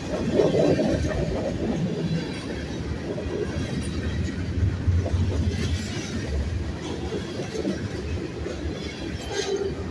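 Mixed freight train of tank cars, covered hoppers and boxcars rolling past at close range: a continuous rumble with steel wheels clattering over the rail.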